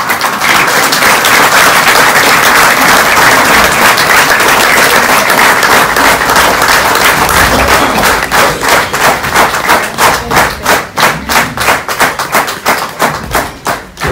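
Audience applauding: many people clapping at once, starting suddenly. About eight seconds in it turns into rhythmic clapping in unison, about three claps a second.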